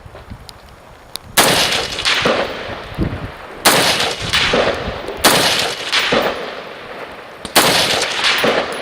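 Four rifle shots about two seconds apart, each a sharp report with a long echoing tail.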